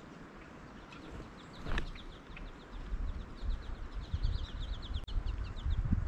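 A small songbird trilling: a fast run of short, high, down-slurred notes, several a second, loudest around four to five seconds in. A sudden rustle about two seconds in, and low knocking and rumbling close to the microphone build up in the second half.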